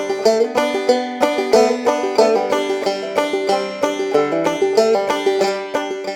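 Background music of quickly plucked banjo notes, at a lively, bouncy pace.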